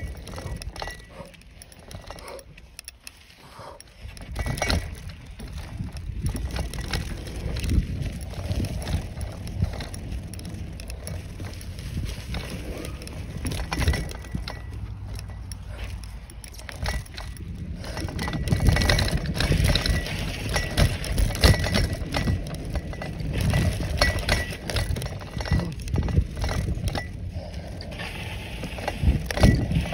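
Bicycle ridden along a sandy, root-crossed dirt trail: an uneven low rumble from the tyres on the ground, with frequent rattles and clinks from the bike as it bumps along.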